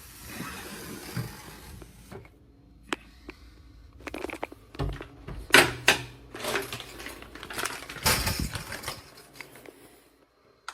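Things being handled in a cabinet: irregular clattering and rustling with a string of sharp knocks and clinks, the loudest about halfway through and again near the end, before it goes quiet.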